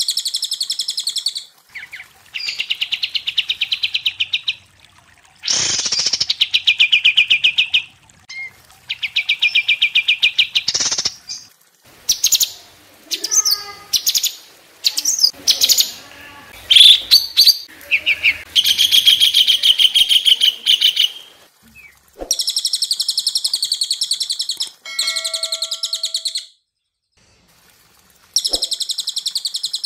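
Caged songbirds singing: a cililin (crested jay), a kapas tembak (olive-winged bulbul) and a cucak cungkok (blue-winged leafbird). The song is a series of high, fast, buzzy trills, each lasting one to three seconds, repeated with short pauses. A few clear whistled notes come about three-quarters of the way through.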